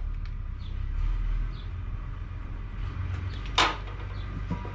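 Small parts and their packaging being handled in a cardboard box: light clicks and rustling, with one sharp crinkle of packaging about three and a half seconds in, over a steady low background rumble.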